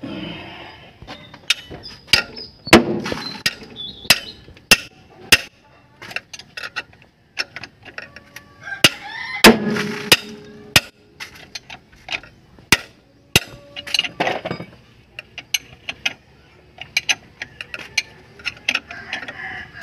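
Hand tools knocking and clinking on metal at the crankshaft pulley bolt: a string of sharp, irregular clicks and knocks.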